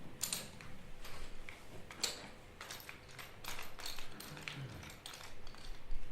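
Irregular small clicks and rattles of a nail gun's metal parts being handled and fitted back together, with about a dozen sharp ticks scattered through.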